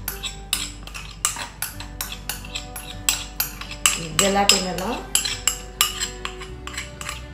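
A metal spoon clinks and scrapes against a ceramic bowl as mango purée is emptied into a glass bowl. A quick run of short clinks plays over background music with a steady beat.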